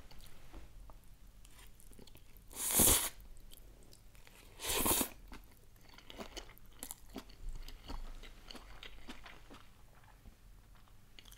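Close-up eating sounds of cold noodle salad with vegetables: two loud slurps of noodles, about three and five seconds in, then quiet chewing with small crunches.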